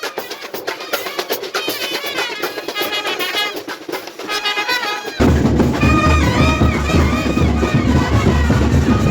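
Brass band music, with trumpet melodies over drum strokes. About five seconds in it jumps abruptly to louder music with a heavy bass beat.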